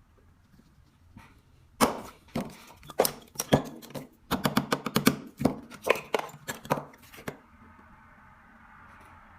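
A lighter being handled and worked on: a quick, irregular run of sharp clicks and small hard knocks of metal parts, stopping about two seconds before the end.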